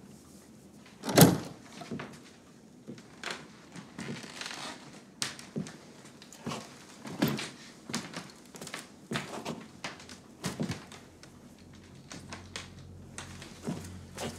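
A heavy thump about a second in, followed by a string of lighter, irregular knocks and clicks. A faint low drone comes in near the end.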